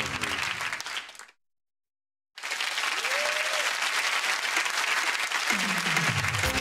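Studio audience applauding over the show's theme music, which fades out about a second in; after a second of silence the applause starts again, and the music comes back in near the end.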